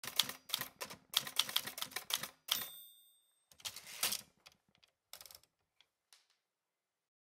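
Typewriter keys clacking rapidly, then a bell ding about two and a half seconds in. A short sliding rasp follows, then a few last scattered keystrokes that trail off.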